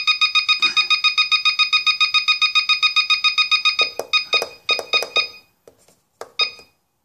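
CellPro PowerLab 8 charger beeping at each button press as its discharge rate is stepped up: a fast, even run of short, identical high beeps, about nine a second while the button is held down. About four seconds in it changes to slower single beeps, then two more near the end.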